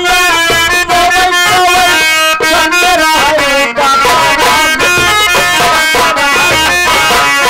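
Live nautanki folk-theatre music: a harmonium playing sustained chords with dholak and nagara drums keeping a steady beat, and a voice singing over it through the stage microphone.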